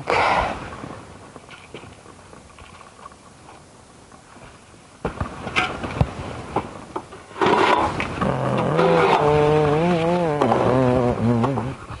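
A man humming a slow tune in a low voice over the last few seconds, after a few scattered knocks and clatters around the middle.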